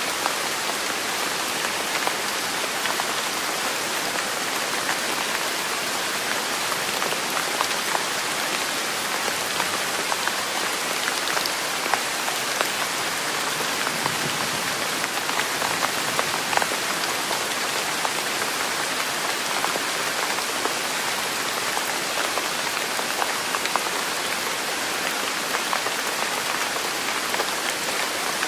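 Steady rain falling on a surface: an even hiss with many small drop taps scattered through it, unchanging throughout.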